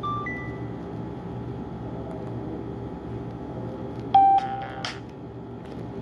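Nokia 130 phone's small loudspeaker giving short electronic ringtone beeps from the Nokia 6650 Fold set: two brief high tones at the start, then a much louder tone about four seconds in with a shorter buzzy one right after it, over steady hiss.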